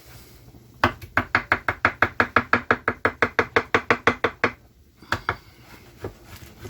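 Knife chopping fresh coriander: a fast, even run of about seven strokes a second for three and a half seconds, then a couple of single chops.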